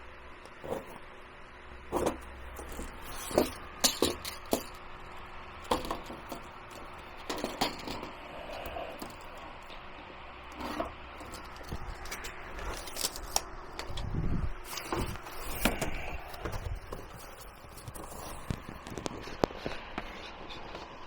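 Irregular clicks, knocks and scrapes of objects being handled, with a short low rumble about two-thirds of the way through.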